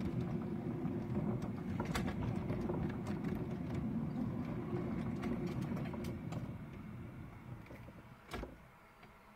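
Steel wheels of a 7¼-inch gauge miniature railway train rumbling along the track, with scattered sharp clicks. The rumble fades from about seven seconds in, and a single knock comes near the end.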